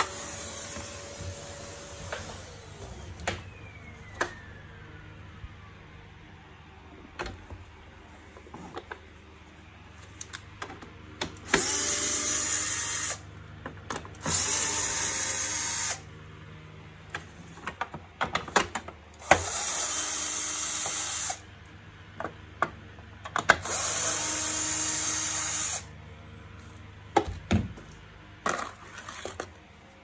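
Cordless drill-driver run in four separate spells of about two seconds each, driving screws to fasten the vacuum cleaner's plastic cover back on. Between the runs there are sharp clicks and knocks of plastic parts being handled.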